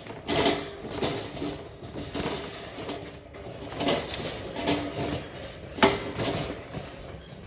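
Pit bulls at feeding time: a string of sharp knocks and clatters with short low tones through it.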